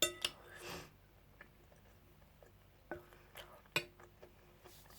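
Cutlery clicking and knocking against a plate, a few light isolated strikes with a short scrape about half a second in and a sharper click near the four-second mark.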